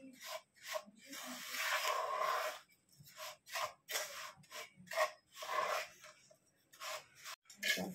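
Wooden spatula scraping and stirring ground moong dal roasting in ghee in a nonstick pot: irregular rasping strokes, one longer scrape about a second in, the rest short with gaps between.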